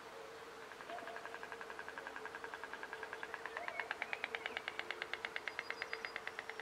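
A rapid rattling trill from an animal: evenly spaced pulses, about ten a second, starting about a second in and growing louder in the middle, over a faint steady hum.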